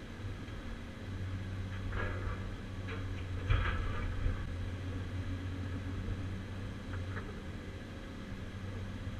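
Caterpillar 345C UHD excavator's diesel engine running steadily, heard from inside the cab. A few clanks and knocks come through from the Atlas Copco CC 4700 scrap shear working scrap metal, the loudest about three and a half seconds in.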